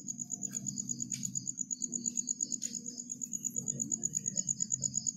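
A cricket chirping steadily, a high rapid trill pulsing about ten times a second, over a low background rumble, with a couple of faint clicks.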